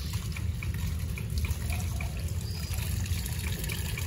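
Tap water running from a hose into a bucket of leafy greens and splashing steadily, with hands stirring and lifting the greens as they are rinsed.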